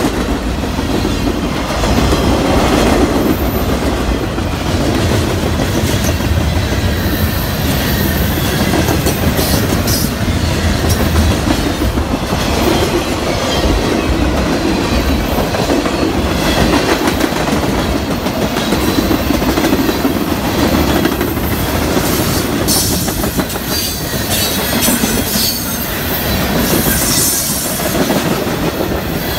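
CSX mixed freight train rolling past at close range: steel wheels clacking over the rail joints over a steady low rumble. Brief high-pitched wheel squeals come in the later part.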